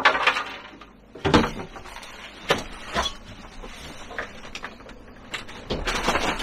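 Clunks and knocks as a plastic box and a chest freezer lid are handled, four separate knocks in the first three seconds, then a rustling, rummaging noise near the end.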